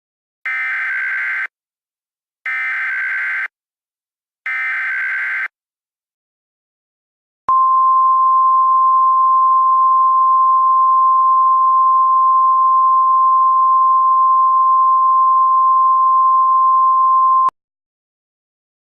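Emergency Alert System alert signal: three one-second bursts of encoded header data tones, a second apart, then a single steady attention tone for about ten seconds that cuts off abruptly. It marks the start of a new emergency message.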